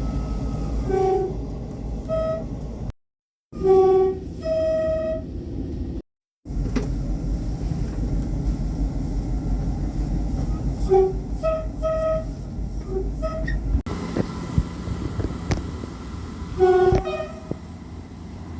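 Two-tone train horns sounding a series of short blasts, high and low notes in turn, over the low rumble of trains on the line. The sound drops out twice briefly where one recording cuts to the next.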